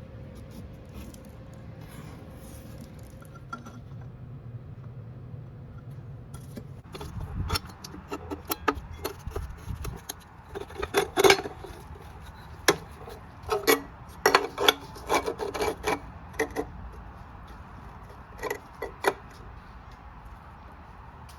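Hand work on ceramic tile: scraping and rubbing, with many sharp clicks and knocks of tile and tools, starting about seven seconds in and dying away near the end.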